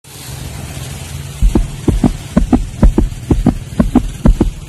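Soundtrack of a video intro: a low steady hum, then from about a second and a half in a fast, pulsing beat of deep thumps in pairs, like a heartbeat, about two pairs a second.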